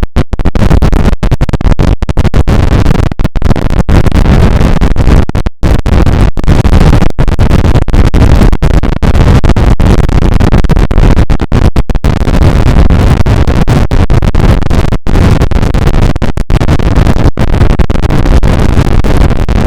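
A sneeze sound effect pushed through vocoder and distortion effects into loud, harsh, near-continuous noise. The noise is chopped by many brief dropouts, the deepest about five and a half seconds in.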